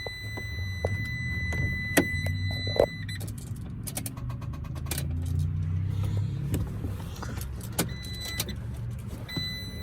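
Cab sounds of a 2014 Ram ProMaster diesel van that will not crank, a fault the owner blames on the starter: a low hum that swells in the middle, a steady high electronic tone that stops about three seconds in and comes back near the end, and a scattering of sharp clicks from the key and controls.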